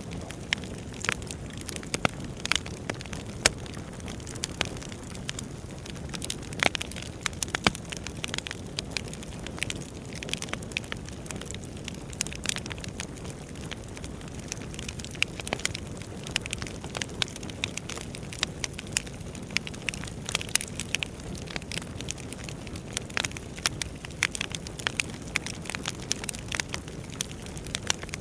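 Firewood burning: irregular sharp pops and snaps, several a second, over a steady low hiss of the fire.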